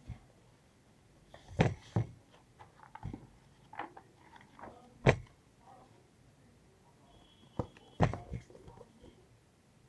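A hardbound book being handled: its pages turning with papery rustles, and about eight sharp taps and knocks as the covers are opened, closed and the book is moved, the loudest about five seconds in.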